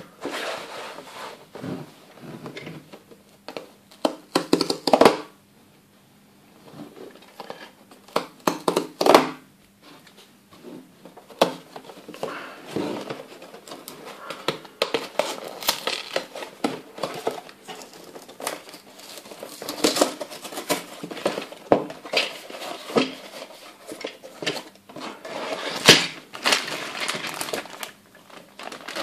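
A cardboard toy box being opened by hand, its flaps scraping and tearing, and sealed plastic bags of small parts crinkling as they are handled, in irregular rustles and clicks with a few louder flurries.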